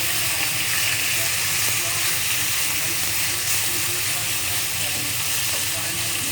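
Tofu and spring onions sizzling steadily in hot oil in a pan.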